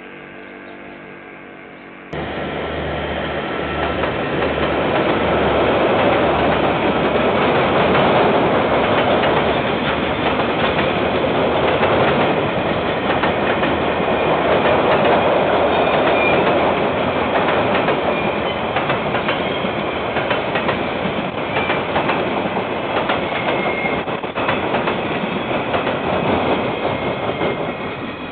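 Freight train of container wagons rolling past at close range, wheels clattering over the rails with a few brief high squeals. It cuts in suddenly about two seconds in, after a faint steady hum.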